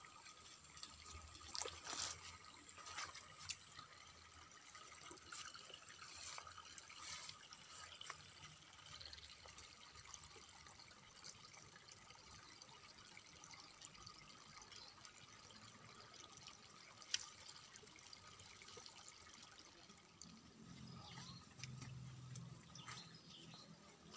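Near silence: a faint trickle of water, with scattered small rustles and clicks and one sharp click about two-thirds of the way through.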